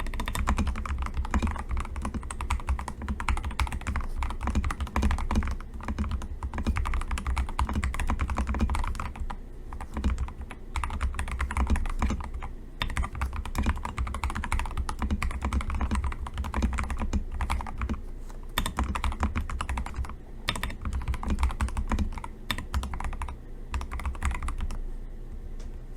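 Custom mechanical keyboard with hand-lubed Akko CS Jelly Pink linear switches being typed on quickly: a dense, continuous run of keystrokes broken by a few short pauses.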